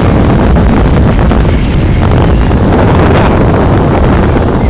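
Loud, steady wind buffeting the microphone of someone riding on top of a moving truck, with the rumble of the ride underneath.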